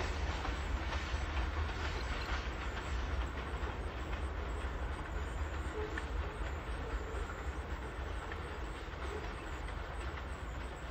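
Manifest freight train rolling away along the track: a steady low rumble that slowly fades as it recedes.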